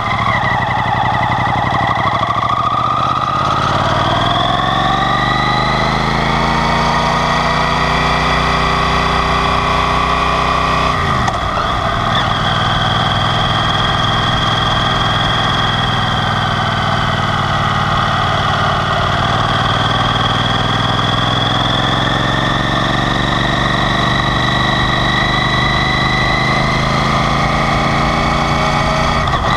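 Yamaha TDM 850 parallel-twin engine under way. The revs fall briefly at first, climb steadily for several seconds, then drop sharply at an upshift about eleven seconds in, and hold, slowly rising, for the rest. Wind noise runs over the microphone throughout.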